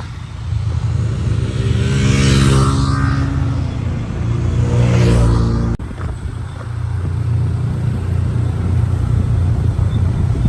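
A motor vehicle's engine running with a steady low rumble, revving up twice, at about two seconds in and again near five seconds; the sound breaks off abruptly a little before six seconds and the rumble resumes.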